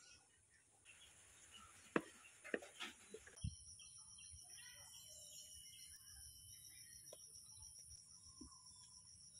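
Faint background with a few sharp knocks about two to three and a half seconds in, the first the loudest, followed by a steady high-pitched whine with faint bird chirps.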